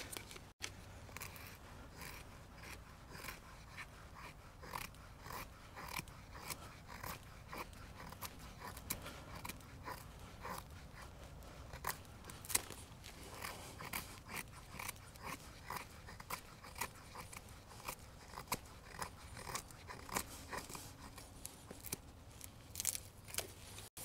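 Leatherman Signal multi-tool's partly serrated knife blade shaving curls from a stick of split firewood, making feather sticks for starting a fire: a run of short, faint scraping strokes at an uneven pace, roughly one or two a second.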